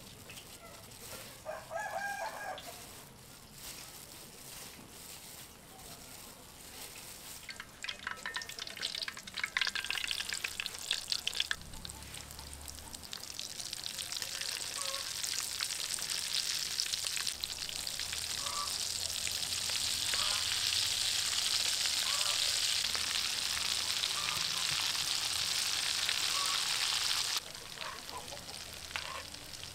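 Breadcrumb-coated potato kebabs deep-frying in oil in a wok: a steady hissing sizzle that builds over several seconds, holds, and drops off suddenly near the end, after a run of crackles and clicks.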